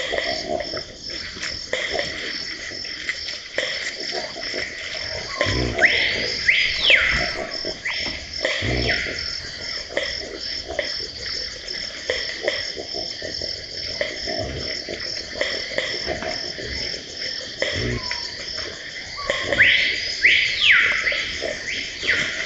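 Amazon rainforest ambience: insects chirr steadily in a fast, even pulse. A bird gives loud whistles that rise and fall, about six seconds in and again near the end. A few short low thuds sound in between.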